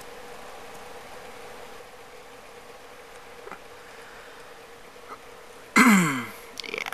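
Faint steady hum with one constant tone. Near the end, a man's voice makes a short loud sound that falls in pitch.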